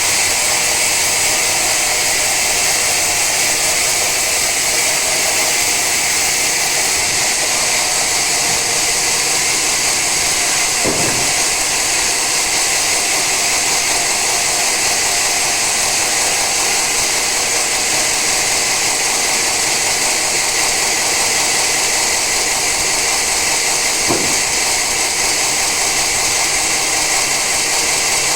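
Sawmill saw cutting through an old teak log: a steady, loud, hissing run with no change in pitch. Two brief knocks come through, about a third of the way in and again near the end.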